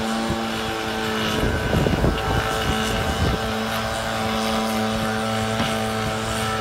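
Small engine of a leaf blower running steadily with an even hum, growing louder and rougher for a couple of seconds starting about one and a half seconds in.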